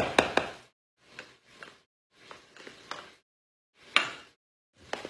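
A spatula scraping thick cream of chicken soup out of a can into a mixing bowl: a few sharp knocks of the can against the bowl at the start, then short scraping strokes with pauses between them, the loudest about four seconds in.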